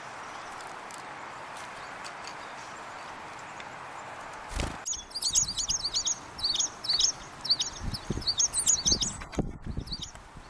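Small winter songbirds giving rapid, high, chirping calls in quick clusters through the second half, after a steady hiss in the first half. A low thump comes just before the calls start, and a few softer low thumps come among them.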